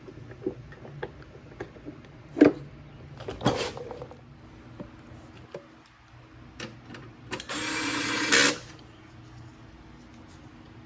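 Metal tool and part handling with a few light clicks and two sharper knocks, then a small power tool running for about a second and a quarter near the end, driving down the mower's gas-tank bolt into the engine block.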